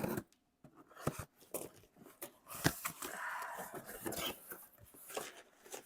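Cardboard shipping box being opened by hand: packaging rustling and crinkling with many sharp taps and clicks, and a longer rustle about three seconds in.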